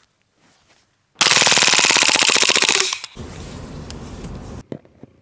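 Airsoft gas pistol firing a rapid full-auto burst of even shots for just under two seconds, then a steady hiss for about a second and a half that cuts off.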